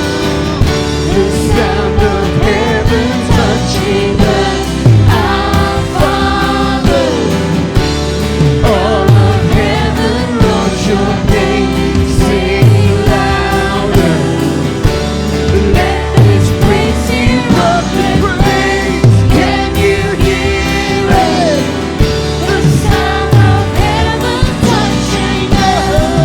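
Worship band playing a Christian worship song, with voices singing over sustained chords and a steady kick drum beat.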